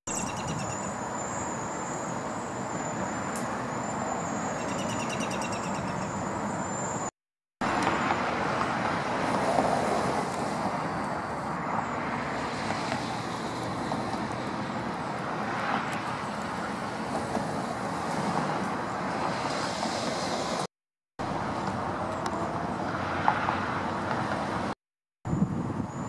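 Steady distant road traffic noise, a continuous rumbling hiss, broken by brief silences where short clips are cut together. A faint high, repeated bird call sounds a few seconds in.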